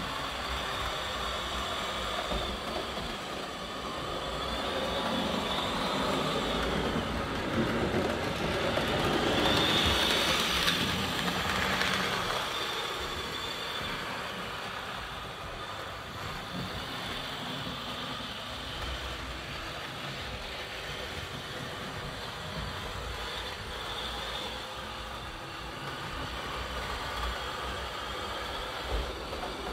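Vintage 1970s Rivarossi HO-scale 2-8-4 Berkshire model steam locomotive, freshly serviced, running around the layout: its electric motor and gear drive whirring and its wheels rolling on the rails, louder as it passes close by about ten seconds in.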